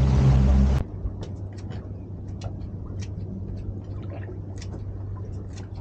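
A boat's motor running under way, with rushing water, cuts off abruptly under a second in. Then scattered light clicks and taps come from burley being mixed and bait cut by hand on the boat, over a low steady hum.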